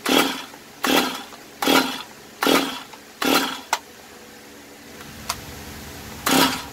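Recoil starter of a Stihl chainsaw pulled over and over, about one short cranking pull a second, five times in a row, then once more near the end after a pause. The engine never catches; the saw has a hole in its piston.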